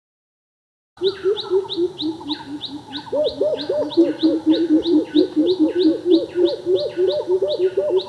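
Greater coucal giving its deep, rapid 'coop-coop-coop' call series, about three low notes a second, cutting in abruptly about a second in. A higher falling note from another bird repeats over it.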